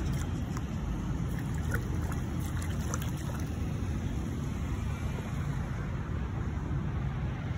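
Steady low rumble of outdoor background noise, with a few faint ticks in the first three seconds.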